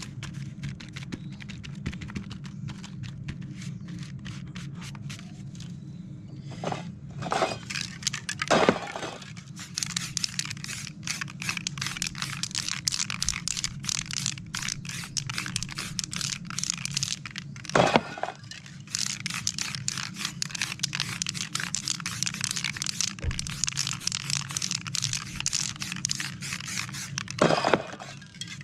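Paper crackling as it is pressed onto and lifted from wet spray paint, then an aerosol spray paint can hissing in spurts from about ten seconds in, with a few short louder sweeps.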